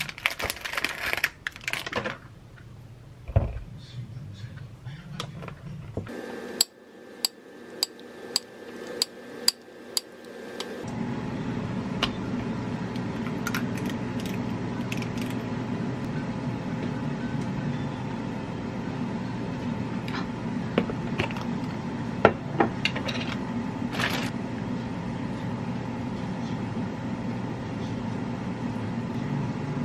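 A plastic wrapper rustling with clicks, then a run of about eight clicks, about two a second. Then an air fryer starts running with a steady hum, and over it come a few sharp clinks of a metal ice-cream scoop and spoon against a ceramic plate.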